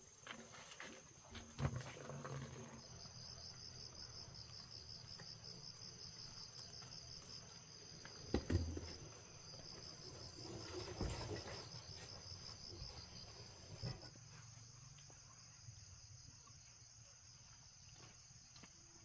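Insects chirping in a steady high trill, joined from about three seconds in until about thirteen seconds in by a second, rapidly pulsing trill. A few dull knocks sound over it, the loudest about eight and a half seconds in.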